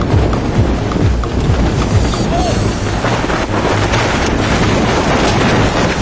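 Wind buffeting the microphone in a steady low rumble, over the rush of water along the hull of a sailing yacht under way.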